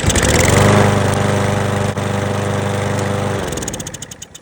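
Briggs & Stratton EX 675 single-cylinder lawn mower engine catching on a pull start just after its carburetor was cleaned, running steadily for about three seconds, then winding down and stopping.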